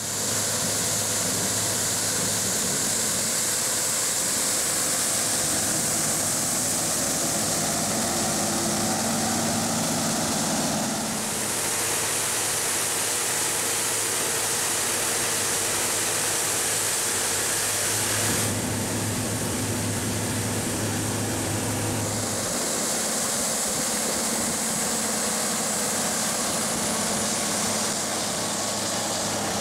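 Combine harvester with a stripper header, its engine and machinery running steadily while harvesting wheat, a steady hum under a broad hiss. The sound changes abruptly a few times along the way.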